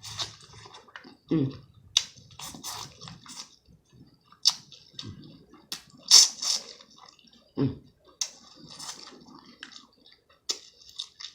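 Close-up wet chewing and squelching of saucy seafood, with small clicks, broken by a few short, low throat-clearing sounds after food went down the wrong pipe.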